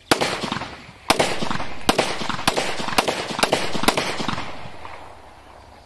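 Seven shots from a locally made 30 bore (7.62×25mm Tokarev) pistol, fired one at a time about half a second to a second apart, each followed by an echo that dies away about a second after the last shot.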